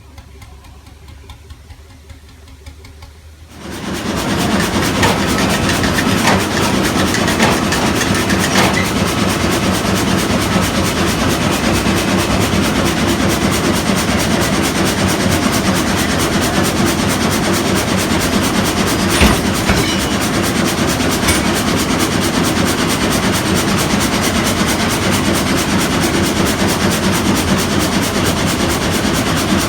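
Old Bolinder frame saw (sash sawmill) running: loud mechanical clatter with a fast, even rhythm that comes in suddenly about four seconds in and then runs steadily.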